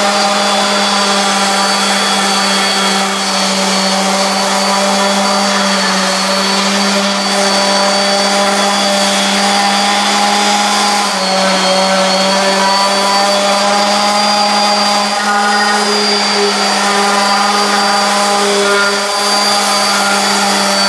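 DeWalt random orbital sander running steadily against a rusty steel truck frame, a constant motor whine. It is sanding the old frame down to bare metal ahead of rust treatment and repainting. The pitch dips slightly about eleven seconds in.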